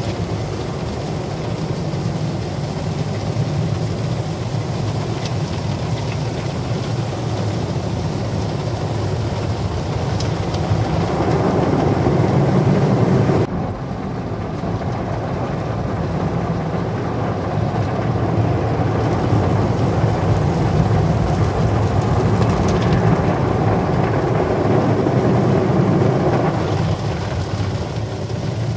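Automatic gantry car wash heard from inside the car. Its rotating brushes scrub across the windshield and body, and water sprays over the glass, making a loud, steady rush of brushing and spray that changes abruptly about halfway through.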